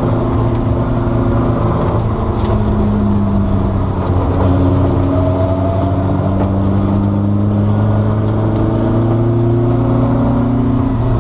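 Bizzarrini 5300 Strada Competizione's naturally aspirated 5.3-litre Chevrolet V8 running steadily at low revs, its pitch drifting gently up and down.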